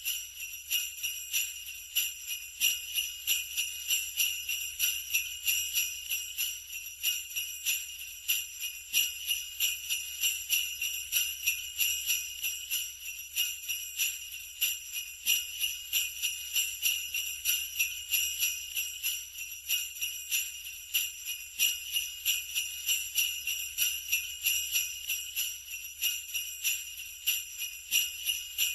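Sleigh bells shaken continuously in a steady, even rhythm, a bright high jingle that doesn't let up.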